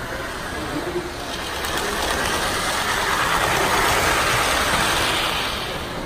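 Model train rolling along the track close by: a rushing, rattling run of wheels and motor that swells for a couple of seconds and fades again near the end.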